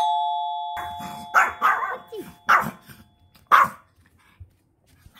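Two-tone doorbell chime, a higher note then a lower one, fading away. A Pomeranian barks five or six times in answer to the doorbell.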